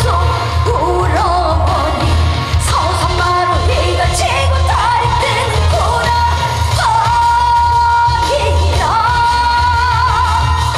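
A woman singing a Korean trot song live through a PA over an amplified backing track with a steady bass beat, holding long notes with vibrato.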